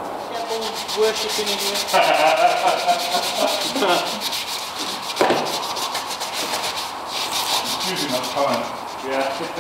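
Primed Land Rover 110 bodywork being rubbed down by hand with abrasive paper, a fast, even run of rasping strokes.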